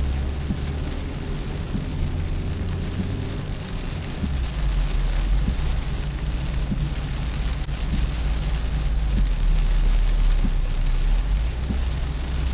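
Rain falling on a moving car, heard inside the cabin through the dashcam's microphone, over a steady low rumble of engine and road noise that shifts in pitch a few times.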